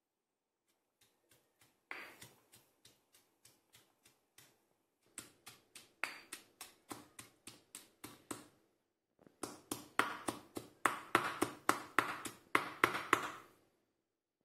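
Stone pestle pounding red chili, shallots and garlic in a stone mortar: about four wet, knocking strikes a second in three runs with short pauses between, the last run the loudest.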